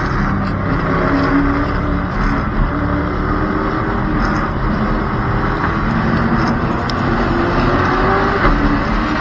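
Stock car engines running in a tight pack on an asphalt oval, heard from the car's roof: a steady, loud engine drone under a rush of noise, with the pitch wavering and creeping up a little in the second half.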